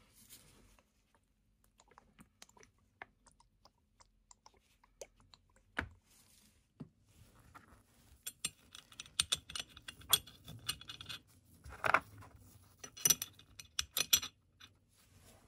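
Small metal tool parts clicking and clinking together as they are handled: scattered light clicks at first, then a dense run of clinks with a few louder knocks over the last several seconds.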